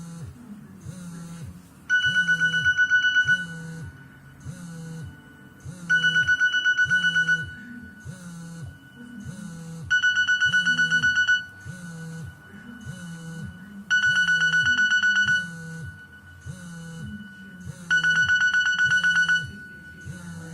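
A Nokia 7610 ringtone playing: a looping electronic tune with a low beat about twice a second, broken every four seconds by a loud trilling ring tone that lasts about a second and a half.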